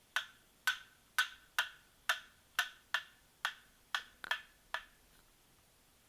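A hand tool striking wood about eleven times in a steady rhythm, roughly two sharp knocks a second, stopping near the end.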